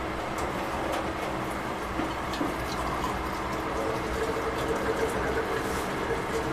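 Pot of pork and cabbage simmering under a glass lid: a steady hiss with small scattered pops and ticks, over a steady hum.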